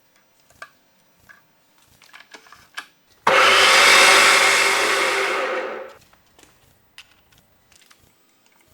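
A small motor-driven workshop power tool runs in a steady whirr for about two and a half seconds, then winds down and stops. Light clicks and taps of tool handling come before and after.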